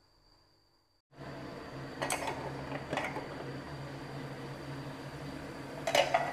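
A big stockpot of pork offal boiling hard on a gas burner: a steady rushing noise with a low hum, starting about a second in after near silence. A few sharp clicks stand out, about two and three seconds in and again near the end.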